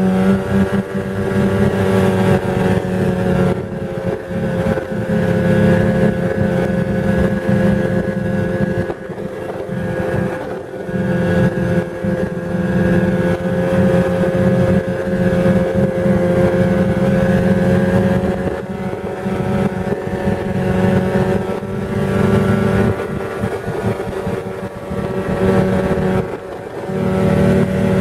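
Snowmobile engine running steadily at travelling speed, easing off briefly about ten seconds in and again near the end.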